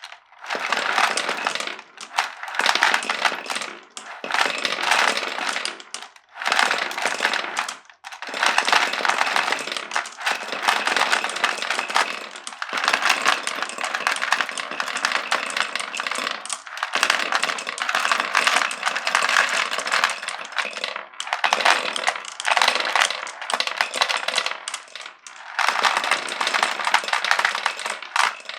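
Glass marbles rolling and clattering down a wooden marble run, in stretches of a few seconds with brief pauses between them.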